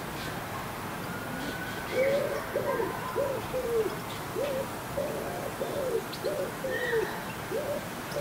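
Wood pigeon cooing: a series of soft, low, hooting notes about two a second in short phrases, starting about two seconds in. Fainter small-bird chirps sound higher up.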